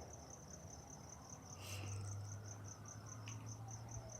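Crickets chirping, a fast, even run of high chirps, faint, over a steady low hum.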